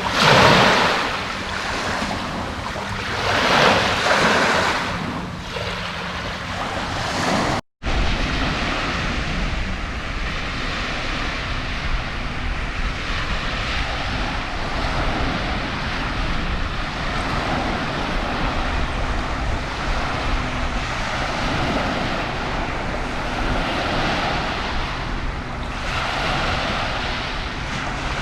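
Lake waves washing on a shore, with wind rumbling on the microphone. There are a few louder rushes in the first seconds, then a steady rush after a short break about eight seconds in.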